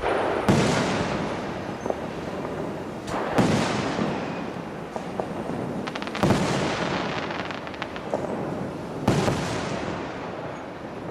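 Fireworks display shells bursting overhead, four big bangs about three seconds apart, each trailing off in a long rumble and crackle.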